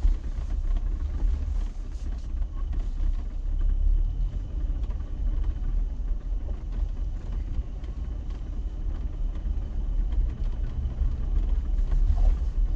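Jeep driving off-road on a four-wheel-drive track, a steady low engine and drivetrain rumble.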